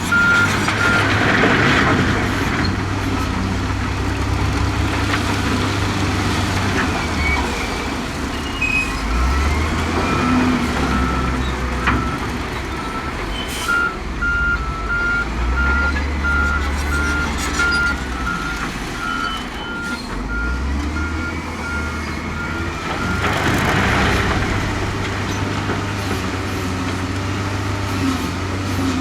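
Heavy diesel earthmoving machinery working: a deep engine sound that changes with the load, and a reversing alarm beeping at an even pace at the start and again through most of the middle. Two swells of hiss stand out, one near the start and one near the end.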